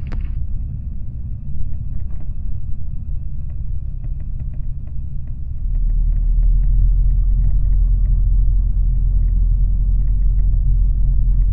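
Microlight aircraft engine and propeller running at taxi power, a steady low rumble that grows louder about six seconds in. A faint steady high whine and scattered light ticks run under it.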